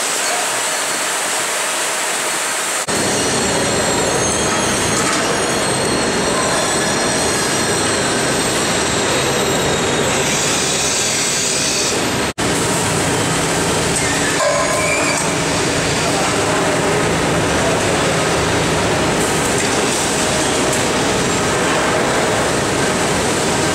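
Rotary milking parlour running: steady machine noise of the turning platform and the milking equipment. It is a thin hiss for about the first three seconds, then fuller and lower, with a sudden brief break about twelve seconds in.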